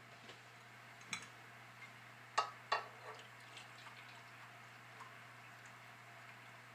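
A saucepan and glass measuring cup being handled, with a few sharp clinks and knocks, then a faint trickle of chicken broth poured from the pan into the cup.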